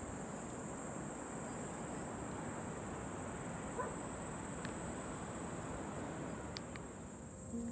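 Steady high-pitched chirring of insects in hillside scrub, over a low even rushing background.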